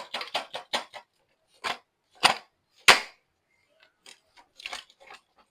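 Sharp clicks and knocks of a coffee grinder's parts being handled and taken apart: a quick run of light clicks, then two loud knocks a little over two and nearly three seconds in, and a few lighter clicks near the end.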